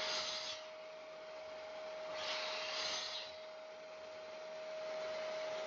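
Wood rubbing against wood: a short scrape at the start and a longer one about two seconds in, as a pressure-treated 2x6 tread offcut is worked into a dado slot in the ladder side to test the fit. A steady faint hum runs underneath.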